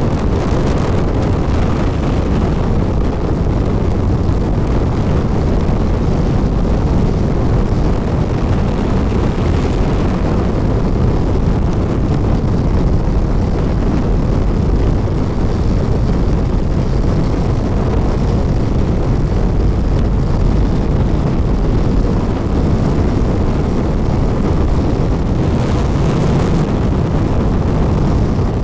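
Steady rush of wind and road noise from a Hero XPulse 200 motorcycle riding at speed, the wind buffeting the microphone.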